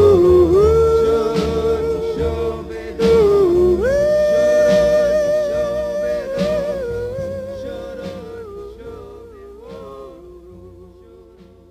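Background music: a song's melody in long held, wavering notes over a backing, fading out steadily toward the end.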